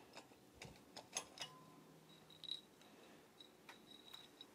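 Faint, sparse clicks and light taps as the metal cylinder head of a 50cc scooter engine is handled, the sharpest click a little over a second in. A faint thin high tone runs through the second half.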